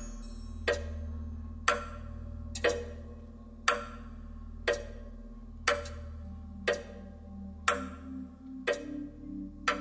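Live percussion music: a sharp, clock-like click struck steadily once a second over a low sustained drone. About six seconds in, low pulsing notes join underneath.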